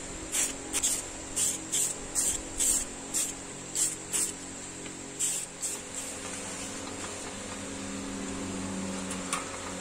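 Aerosol spray can hissing in short, quick bursts, about two a second, as a coat is sprayed onto a wooden axe handle. The spraying stops about six seconds in, leaving a steady low hum.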